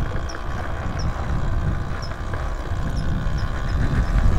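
Electric dirt bike ridden along a dirt trail: a ragged low rumble of wind on the microphone and tyre noise, with a faint steady hum above it, rising slightly near the end.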